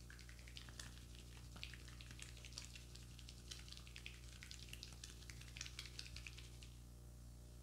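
Wet, crackly squishing of foamy white cream as a barber's fingers rub and massage it over a client's face, many small fizzing pops that stop near the end. A steady low electrical hum runs underneath.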